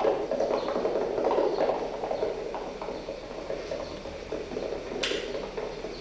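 Horses' hooves clopping irregularly as riders pass at speed, the hoofbeats fading over the first few seconds. A short sharp noise comes about five seconds in.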